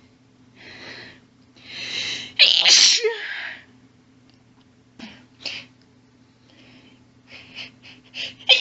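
A woman's sneezing fit. A catching, gasping build-up leads to one loud sneeze about two and a half seconds in. After a short pause come a few sharp hitches and then quick, short catching breaths that build toward the next sneeze at the very end.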